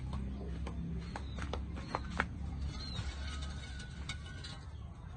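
Log fire in a ground pit crackling, with a few sharp pops in the first couple of seconds, over low background music.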